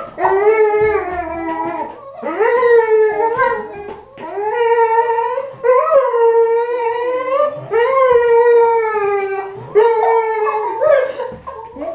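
A dog vocalizing in a run of long, wavering howl-like whines, about six in a row, each lasting one to two seconds, with short breaks between them.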